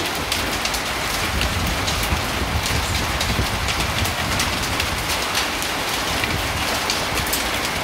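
Heavy rain mixed with small hail pelting a clay-tile roof: a steady hiss full of sharp ticks of stones and drops striking, over a low rumble.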